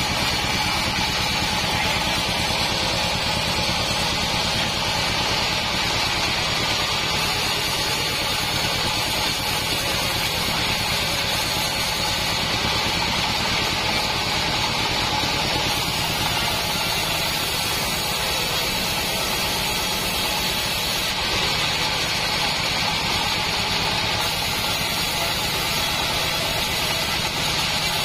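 Assembled bandsaw mill running steadily, its band blade sawing through a plank of salam wood.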